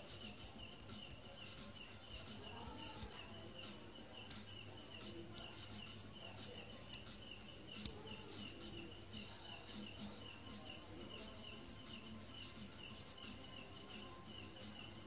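Faint, steady chirping insect, about three or four even chirps a second, with scattered sharp clicks.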